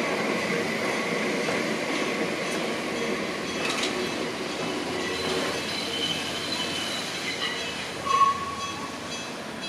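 Enoden electric train running past on street-level track, its wheels rumbling on the rails with a faint squeal, the sound slowly fading away. A short loud tone sounds about eight seconds in.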